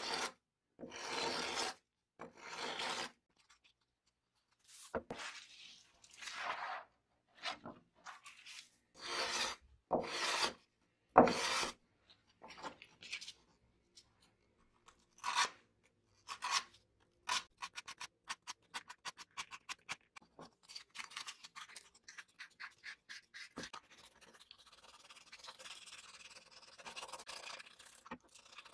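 Sandpaper rubbing by hand over a tape dispenser part in scratchy strokes. The strokes are long and separate at first, become quick and short a bit past halfway, and settle into a softer, steadier rubbing near the end.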